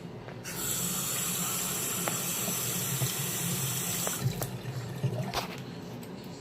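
Toto toilet flushing: a rush of water starts about half a second in, runs steadily for nearly four seconds, then dies down to quieter water noise.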